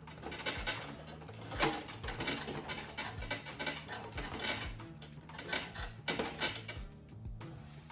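Background music with a steady low beat, under irregular clicks and rattles of small parts and tools being handled.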